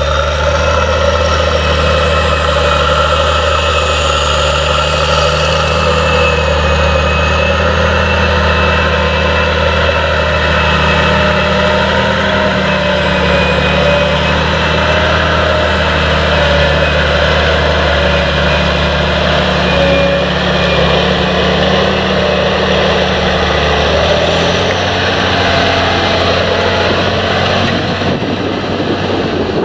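Challenger MT865C rubber-tracked tractor's Caterpillar C18 diesel engine running steadily under heavy load while pulling a multi-furrow reversible plough through the soil. It gets slightly quieter near the end.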